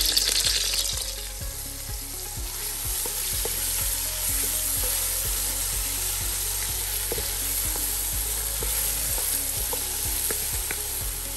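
Sliced onions and green seasoning sizzling in hot oil in a metal pan, stirred with a wooden spoon. The sizzle is loudest in the first second, then settles to a steady frying hiss.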